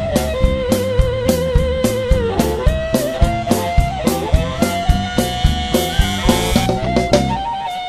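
Background music with a steady drum beat and a sustained melody line. The drums and bass drop out shortly before the end.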